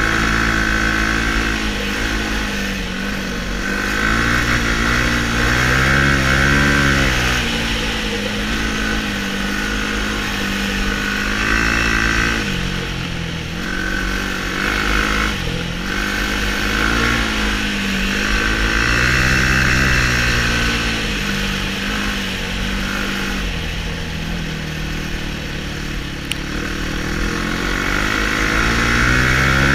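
Sport quad (ATV) engine heard from on board as it is ridden over a snowy, icy track. The pitch rises and falls again and again as the throttle is opened and eased.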